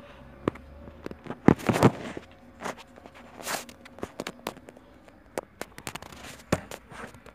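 Irregular clicks, taps and a brief rustle from handling containers and ingredients while mixing shampoo-and-salt slime by hand.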